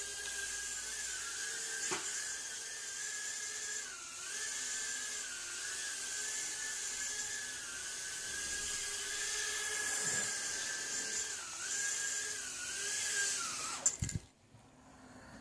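Eachine E010 micro quadcopter's tiny brushed motors and propellers whining steadily, the pitch dipping briefly now and then as the throttle changes, with a couple of light knocks. Near the end the whine drops sharply and cuts off amid a few clatters as the motors stop.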